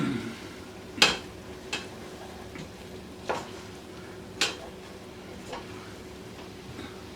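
A utensil stirring flour into butter, onions and mushrooms in a pot on the stove, with a light sizzle and a few sharp knocks of the utensil against the pot.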